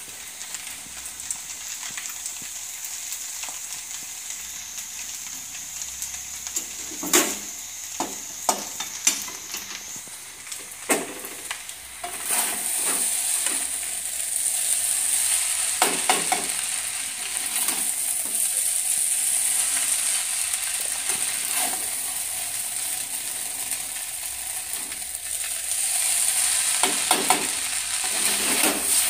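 Noodles with masala sizzling as they stir-fry in a steel pan on a gas stove, tossed with metal tongs that clink against the pan now and then. The sizzle grows louder about twelve seconds in.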